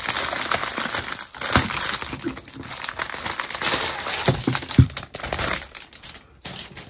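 Clear plastic packaging crinkling and rustling as a framed canvas in its plastic sleeve is handled and slid out, with a few knocks along the way; the crinkling dies down near the end.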